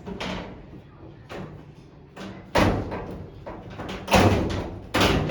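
A series of sharp knocks and clunks, like panels or parts being handled and set in place, with the loudest about four seconds in.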